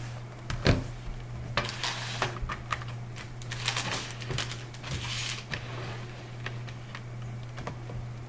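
Laptop handling noise: irregular plastic clicks, knocks and rustling as the battery is seated and its lock switches are slid shut, with one sharper knock near the start, over a steady low hum.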